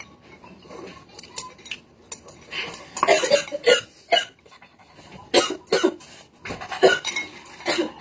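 A woman coughing while eating very spicy noodles. The coughs come in several short fits, the first about two and a half seconds in and the rest later on.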